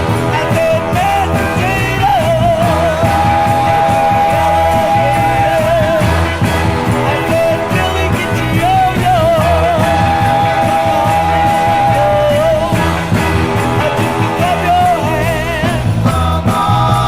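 An oldies soul record playing: a full band with a lead melody line holding long notes with vibrato over a steady bass.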